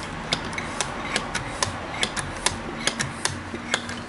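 Bicycle pump partly inflating a new inner tube, heard as a run of sharp clicks at about three a second.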